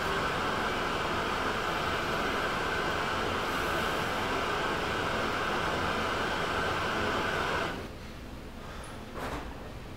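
Television static: a steady hiss of lost broadcast signal that cuts off sharply about eight seconds in.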